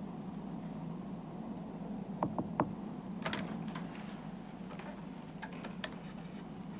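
Steady airliner cabin hum with scattered short clicks and knocks, three in quick succession about two seconds in and more a little later.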